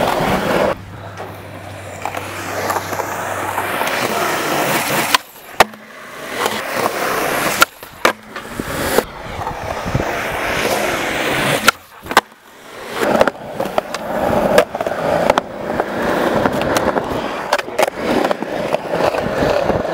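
Skateboard wheels rolling over concrete skate-park ramps and flat ground, broken by several sharp clacks of the board popping and landing on the concrete.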